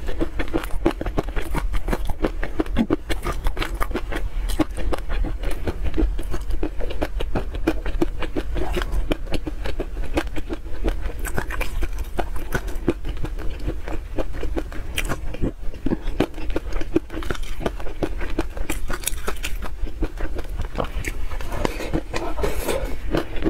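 Close-miked eating sounds: wet chewing and lip smacks while eating chili-oil peanut sauce, slurped from the plate rim and scooped with a silicone spoon, as a dense, continuous run of small clicks.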